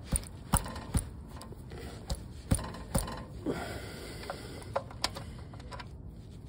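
Socket ratchet clicking as a 13 mm bolt on the car's underside is worked loose by hand: sharp single clicks about every half second for the first three seconds, then fewer.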